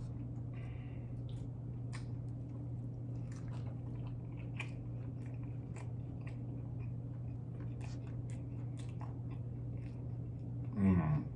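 A mouth chewing a bite of jalapeño cheeseburger, with scattered soft, wet smacks and clicks over a steady low hum.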